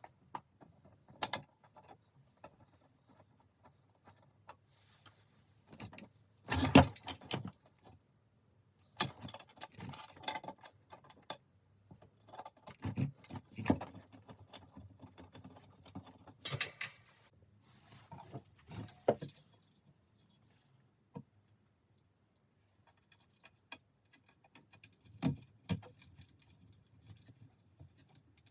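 Steel bicycle spokes and a spoke nipple key clinking and rattling as spokes are unscrewed and pulled from a wheel, in scattered bursts. The loudest rattle comes about seven seconds in.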